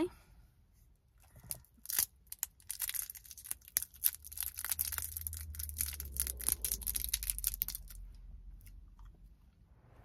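A small wrapper crinkling as it is torn open and unwrapped by hand close to the microphone, a fast run of crackles from about a second and a half in until about eight seconds in.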